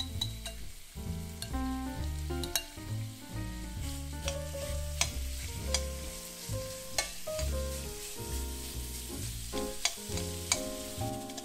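Minced chicken and garlic sizzling in a stainless steel pan while a utensil breaks up and stirs the meat, with sharp clicks and scrapes of the utensil against the pan. Background music with changing notes plays underneath.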